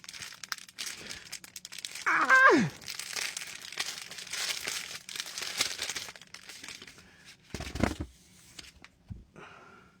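Plastic packaging crinkling and tearing as a parcel is opened and its contents are pulled out. A short vocal sound falls in pitch about two seconds in, and a dull thump comes near the end.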